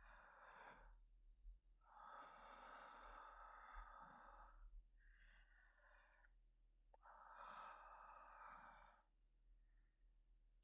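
A man breathing slowly and heavily, with four long breaths in and out, the second the longest. The breathing is faint.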